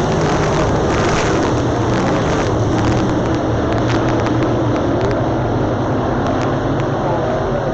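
A pack of dirt late model race cars at racing speed, their V8 engines running hard in a loud, steady drone. One car passes close by near the start.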